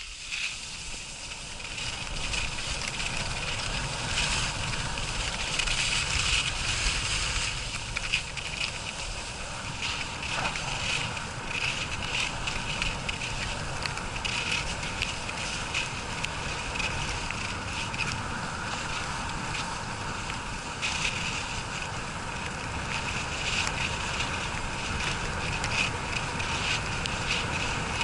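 Rushing noise of skiing downhill through snow: skis hissing over the snow and wind buffeting the action camera's microphone. It grows louder over the first two seconds as the skier picks up speed, then runs steadily.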